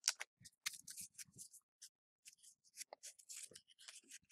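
Hockey trading cards being slid and flicked through by hand: faint, scattered short rustles and ticks of card stock.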